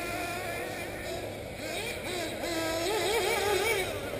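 Small two-stroke nitro engines of 1/8-scale RC buggies racing, their high-pitched whine rising and falling as they rev through the track. One car is louder from about two seconds in, its pitch swooping up and down repeatedly.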